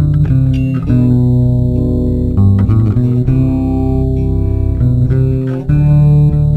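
Background music: plucked guitar with a bass line, playing sustained notes and chords that change every second or so.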